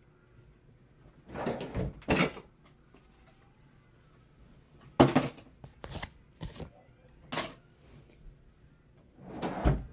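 Handling noise from things being moved and set down on a desk: several short clusters of knocks and rubs, the sharpest about five seconds in.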